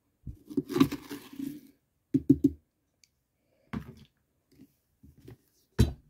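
Scooping the remaining seeds and pulp out of a pumpkin: a longer scraping burst about half a second in, three quick knocks around two seconds, then a few short scrapes and a sharp knock near the end.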